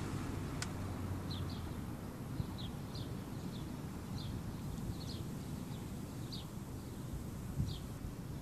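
Wind rumbling on the microphone, with a small bird giving short, high, falling chirps about once or twice a second.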